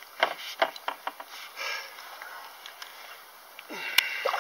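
Spinning reel and rod being handled while playing a hooked pike: irregular light clicks and rustles as the reel is wound against a fish dragging weed, with a sharp click about four seconds in and a short vocal sound from the angler near the end.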